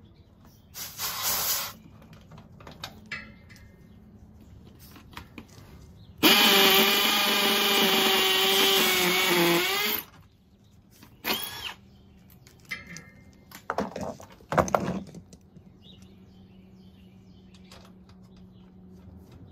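Cordless drill running in bursts. A short burst comes about a second in, a steady motor whine lasts about four seconds from around six seconds in and sags slightly in pitch just before it stops, and a few brief bursts follow.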